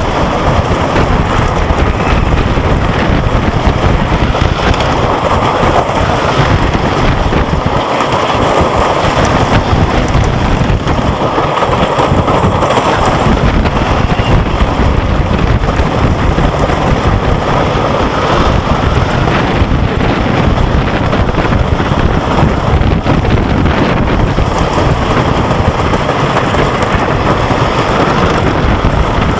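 Roller coaster ride heard from a rider's head-worn camera: loud, steady wind rushing over the microphone, mixed with the rumble of the train running along the track.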